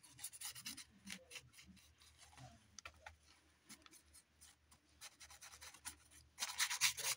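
Small paintbrush scrubbing and dabbing white gesso onto torn corrugated cardboard: a string of light, scratchy strokes, busier and louder near the end.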